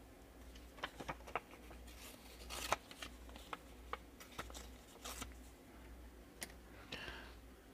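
Faint handling noises of trading cards: scattered light clicks and brief rustles, over a faint low hum.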